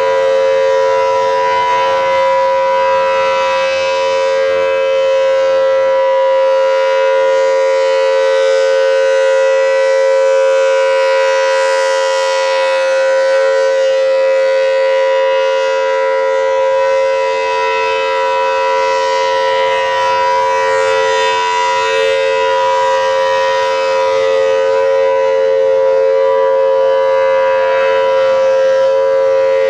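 Federal Signal Thunderbolt 1000AT outdoor warning siren, an early A2-series unit with the larger 5M blower, sounding a steady tone. The pitch holds level throughout, while the loudness swells and dips slightly.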